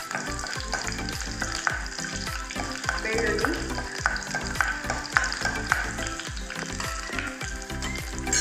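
Garlic cloves and whole seeds sizzling in hot oil for a tempering, with a steel spoon scraping and clicking against the nonstick kadai as they are stirred.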